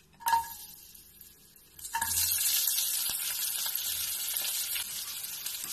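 Chopped scallion, ginger and garlic hitting hot oil in a stainless steel wok and sizzling: a short ringing tap near the start, then the sizzle starts suddenly about two seconds in and holds steady.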